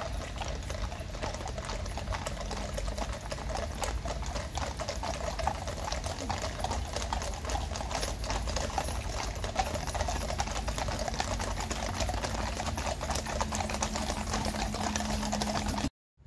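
Many horses' hooves clip-clopping on a wet road as a mounted cavalry column and two police horses walk past, a dense run of overlapping hoof strikes. It cuts off abruptly near the end.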